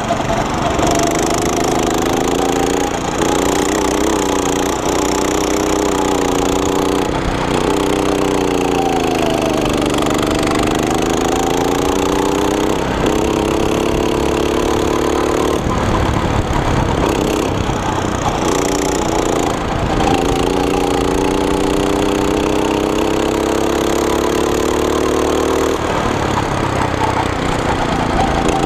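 Go-kart's small petrol engine running hard under the driver, its pitch rising and falling with speed and dipping briefly several times as the throttle is lifted for corners.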